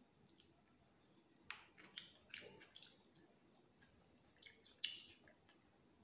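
Near silence: faint room tone with a steady high hiss and a few faint small clicks and smacks.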